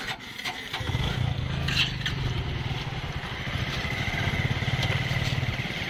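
Motorcycle engine that comes in about a second in and then runs steadily.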